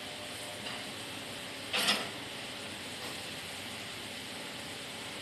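Sany excavator at work: a steady hiss of running machinery, with one short, loud creak of metal about two seconds in.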